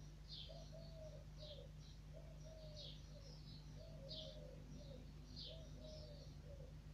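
Faint dove cooing in repeated phrases of about a second each, four times, with a small bird chirping and twittering higher in between.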